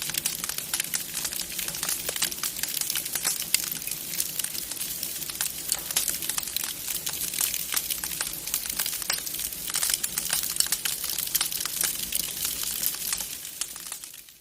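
Wood fire crackling in a fireplace: a dense, irregular run of small pops and snaps, fading out near the end.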